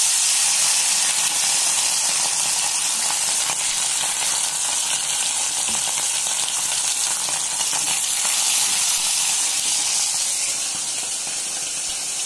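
Small mola fish frying in hot oil in a wok: a steady, dense sizzle.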